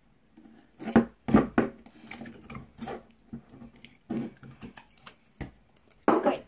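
Fingers digging firm, metallic gold slime out of a small plastic cup: irregular squishes and sticky pops, densest about a second in, with a few more near 4 seconds and near the end.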